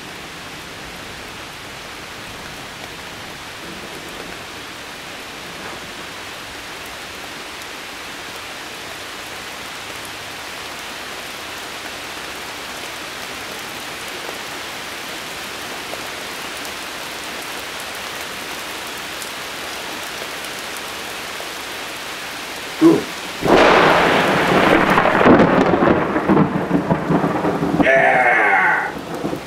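Steady rain falling. About 23 seconds in, a close thunderclap: a sharp crack followed by several seconds of loud rumbling.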